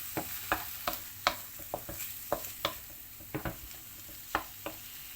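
Diced chicken breast and onion frying in oil in a large frying pan, a steady sizzle, while a utensil stirs them with irregular clicks and scrapes against the pan.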